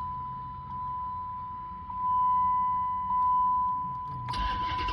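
A steady electronic warning tone in the Dodge Charger R/T's cabin, swelling twice, then near the end the starter cranks and the 5.7-litre HEMI V8 catches and starts.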